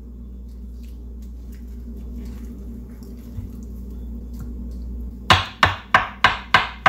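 A kitchen knife slicing avocado on a wooden cutting board, a quick run of even knocks about three a second starting about five seconds in. Before that only a low steady hum.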